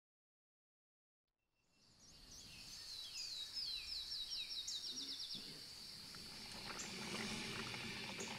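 Silence for about the first second and a half, then faint outdoor pre-dawn ambience fades in. Over it, a bird sings a run of short downslurred whistles that speed up into a quick trill.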